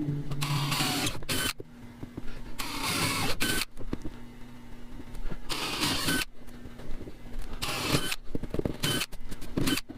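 A power drill's motor hum carries over and stops about a second in. It is followed by scattered clicks and clatter of drill bits and metal parts being handled.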